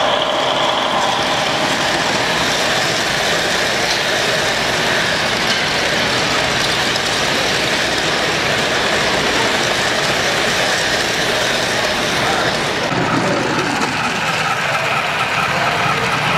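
Model passenger trains rolling past close by: a steady rumble and clatter of wheels on the track, over the din of a busy exhibition hall. The sound shifts about thirteen seconds in as a different train is heard.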